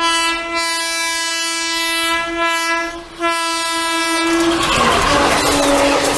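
Horn of a WAP-4 electric locomotive sounding two long blasts as the train approaches at speed; near the end of the second blast the pitch drops as the locomotive passes. Then the loud rush and clatter of passenger coaches going by close at speed.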